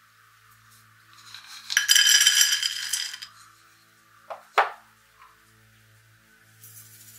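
Shelled peanuts poured into a nonstick saucepan: a loud, dense rattle of nuts hitting the pan for about a second and a half. Two sharp knocks follow about a second later as the emptied bowl is set down on the wooden table.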